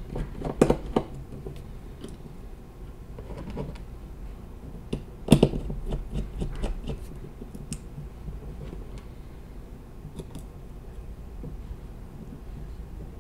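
Small, scattered clicks and taps from the parts of a Librem 5 smartphone being handled and unclipped during disassembly, with one louder knock about five seconds in.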